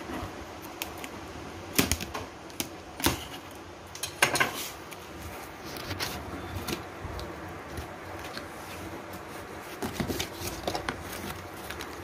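Plastic strapping bands being pulled off a cardboard parts box and the box flaps opened by hand: irregular sharp clicks, scrapes and cardboard rustling.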